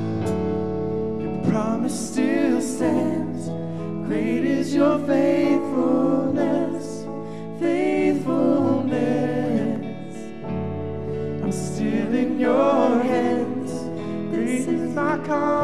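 Worship band playing a song, several voices singing into microphones over guitars and keyboard, with steady held low notes underneath.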